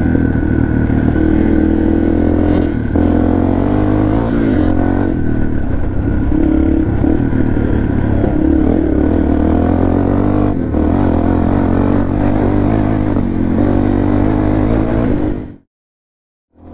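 Dirt bike engine running under throttle, its pitch rising and falling as the rider works the throttle and gears. The sound cuts off abruptly near the end.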